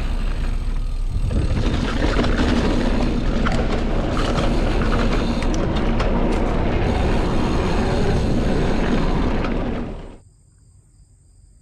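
Loud rushing noise of a mountain bike being ridden over rough ground, wind and tyre rumble with scattered rattles and knocks. It cuts off abruptly about ten seconds in, leaving faint steady cricket chirring.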